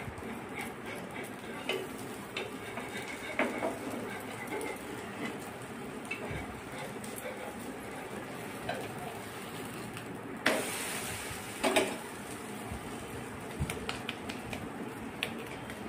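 Thalipeeth frying on a nonstick tawa: a faint steady sizzle, with the scrape and clink of a metal turner against the pan. A brief louder rush of noise comes about ten seconds in.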